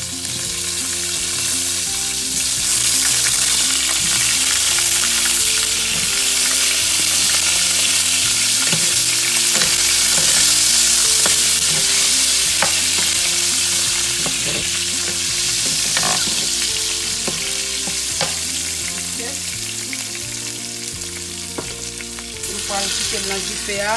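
Whole grape tomatoes sizzling in hot olive oil in a frying pan, with scattered sharp pops and clicks. The sizzle is loudest in the middle and eases toward the end.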